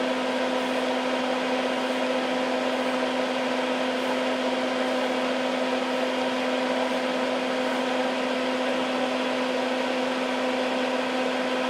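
Hakko soldering smoke absorber's fan running steadily: an even whir of moving air with a constant hum.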